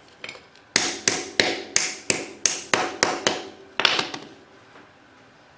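Hammer blows on metal: about eight sharp, ringing strikes at roughly three a second, then a pause and one last strike.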